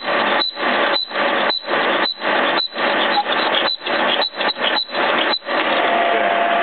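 Horizontal boring machine's boring bar cutting metal in a connecting-rod bore. The cutting noise pulses about twice a second, in step with the bar turning at about 100 RPM, then runs on steadily from about five and a half seconds in.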